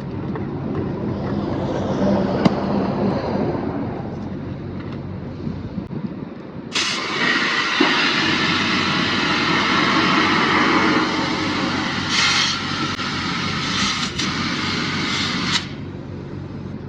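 A steady low engine hum, then about seven seconds in a loud compressed-air hiss starts suddenly. It runs for about nine seconds, surging briefly twice, and cuts off sharply near the end.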